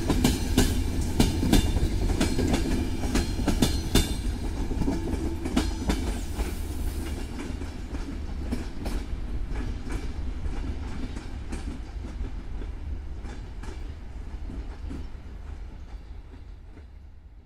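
Passenger train coaches rolling away over the rails, their wheels clicking and clattering over the rail joints above a low rumble. The sound fades steadily as the train recedes.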